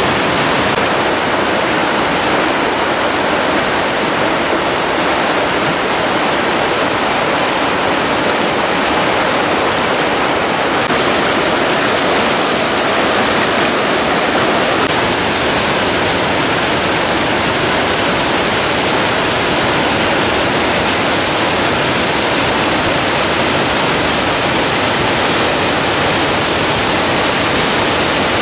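Mountain river running high with spring snowmelt, a steady loud rush of whitewater pouring over boulders.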